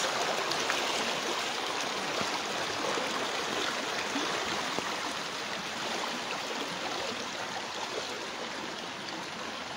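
Muddy floodwater from the overflowing Manu river running fast across flooded ground and around tree trunks: a steady rushing sound that eases slightly toward the end.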